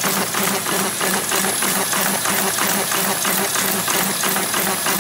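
Horizon paper-finishing machine running: the steady, rhythmic clatter of its stitching and conveyor mechanisms, beating at a few strokes a second.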